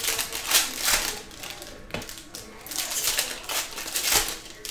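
Foil wrapper of a Panini Prizm basketball hobby pack crinkling and tearing as it is peeled open by hand, in runs of sharp crackles. The loudest come about half a second and one second in, and again from about three to four seconds in.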